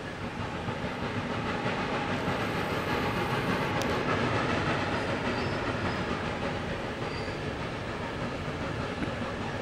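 Heisler geared steam locomotive No. 6 running with its train of passenger cars, getting louder over the first few seconds and then holding steady.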